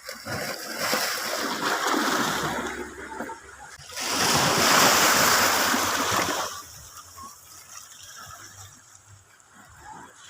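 Water splashing and rushing in two surges, the second, about four seconds in, the louder; it dies down after about six and a half seconds.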